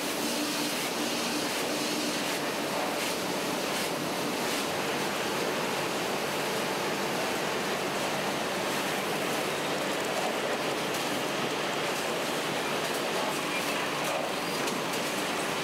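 Toilet-paper roll conveyors and wrapping machinery running, a steady even mechanical noise with a few faint ticks in the first few seconds.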